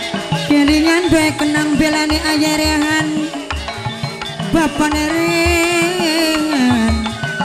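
Gamelan music accompanying a wayang kulit performance: drum strokes under a long, wavering held melody line.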